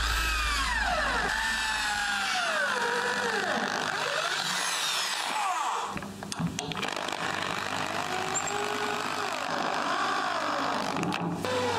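Cordless drill boring a pilot hole into wood, its motor whine rising and falling with the trigger. About six seconds in it stops for a few clicks as a wood screw is set in the hole, then the drill drives the screw in near the end.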